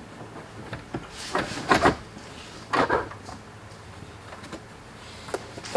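Car floor carpet being tugged and ripped out of the stripped interior, scraping and rustling in short bursts, the loudest about one and a half and three seconds in.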